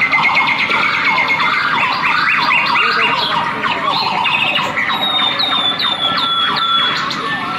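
A dense chorus of bird calls: many overlapping chirps and whistles, as played for an animatronic bird display. About five seconds in, one call repeats as a run of six falling whistles.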